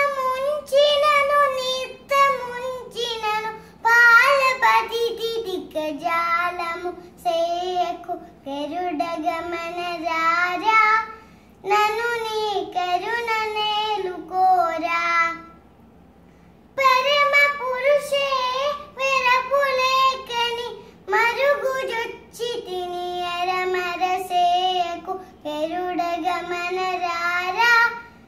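A four-year-old girl singing a Carnatic devotional song unaccompanied, in gliding, ornamented phrases separated by short breaths, with one longer pause about halfway through.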